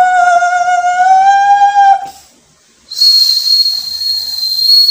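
A man holds a long high sung note, steady with a slight rise, for about two seconds. After a short pause, a single high, steady whistled tone with a little hiss follows for about two seconds.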